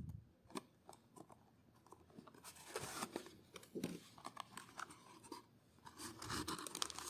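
Faint handling of a cardboard trading-card box and foil booster packs: scattered clicks, scrapes and rustles as the box is opened and its packs are pulled out.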